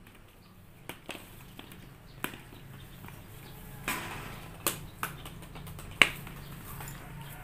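Scattered sharp clicks and light taps, about half a dozen, the loudest about six seconds in, over a faint steady low hum.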